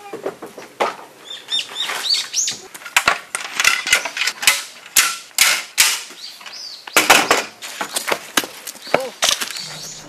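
Camping gear being unpacked and handled: a busy run of rustling bags and fabric and sharp clatters, including a metal electric-fan guard being handled. A few short high chirps come through near the start.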